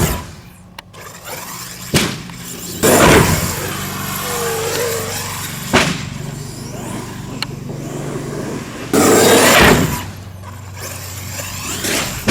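Large electric RC monster truck driving hard: a motor whine that rises and falls in the middle, broken by several loud bursts of tyre and impact noise about two, three, six and nine seconds in.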